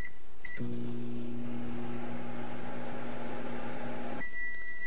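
Microwave oven keypad beeping twice as buttons are pressed, then the oven running with a steady hum for about three and a half seconds. The hum stops suddenly and one long beep follows, the end-of-cooking signal.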